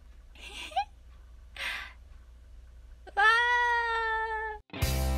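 Two short breathy sounds, then a single drawn-out high-pitched cry held for about a second and a half. Music starts near the end.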